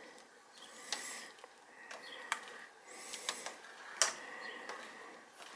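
Metal spoon stirring split pea soup in a slow cooker's crock, scraping around the pot with a few sharp clinks against its side. The loudest clink comes about four seconds in.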